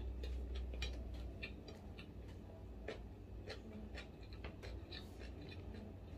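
Close-miked eating sounds: irregular small clicks and smacks of chewing and handling food, several a second, over a low steady hum.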